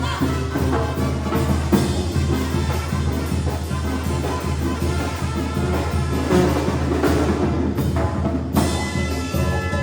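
Mexican banda music: a band playing with drums and a steady low bass line.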